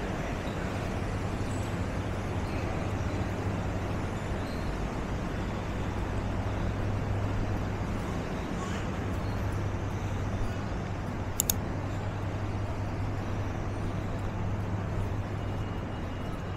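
City street ambience: a steady low hum of vehicle engines and traffic. A short sharp click comes about eleven seconds in.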